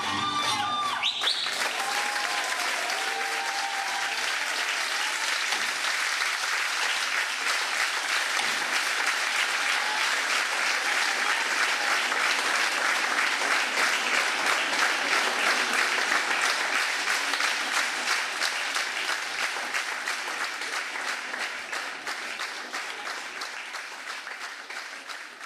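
Audience applauding as the folk band's last fiddle notes end about a second in. The clapping builds, then slowly fades toward the end.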